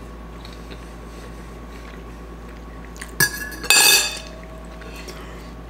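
A metal fork set down on a plate: a short click about three seconds in, then a louder clatter that rings briefly.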